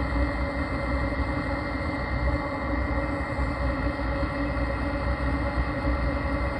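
Webasto ThermoTop C diesel coolant heater running steadily, its blower and burner giving an even hum with a few constant tones over a low rumble. It is early in its warm-up, with the coolant hoses still about 16 °C.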